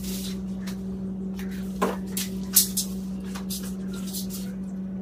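Tent pole sections clicking and clacking together as a dome shelter's poles are put together, a few sharp knocks, the loudest about two and a half seconds in. A steady low hum runs underneath.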